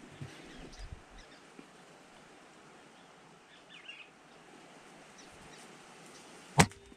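A single sharp crack of a PCP air rifle shot near the end, by far the loudest sound: the shot that drops a dove from the tree. Faint bird chirps come about halfway through, over soft handling thumps at the start.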